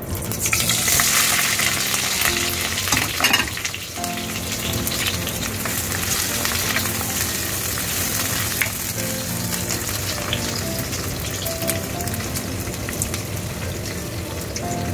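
Sliced bell peppers and green chillies sizzling in hot oil in a non-stick wok. The sizzle is loudest as they go in, then the frying runs on steadily while a spatula stirs them, with a short clatter about three seconds in.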